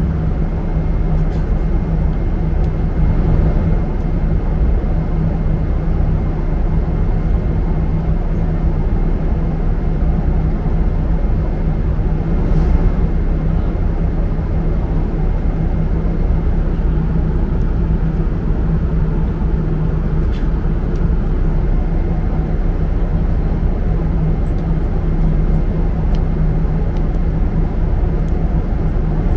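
Steady drone of an airliner cabin in cruise: engine and airflow noise, strongest in the low end, with a faint steady high whine. A few faint clicks and rustles rise above it.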